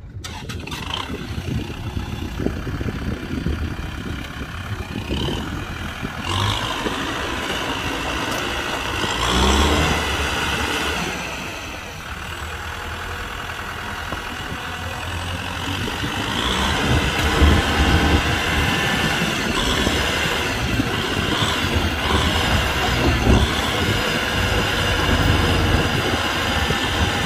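Kubota tractor's diesel engine running and revving up and easing off several times, loudest about nine seconds in and again from about sixteen seconds on.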